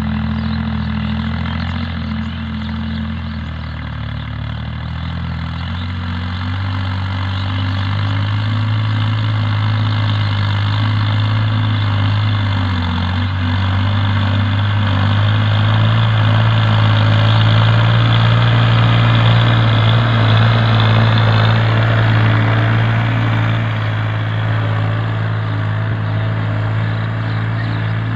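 Farm tractor's diesel engine running steadily as the tractor drives across a field, a low even drone that grows louder as it approaches and eases off slightly near the end.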